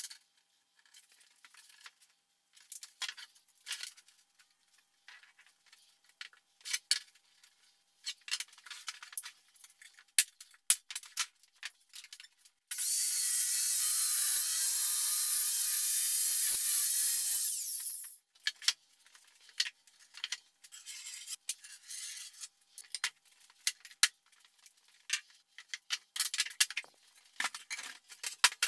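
Scattered light clicks and knocks of handling a plywood sheet, then about 13 seconds in a handheld circular saw starts, runs steadily for about five seconds cutting through the plywood, and stops. More scattered knocks follow.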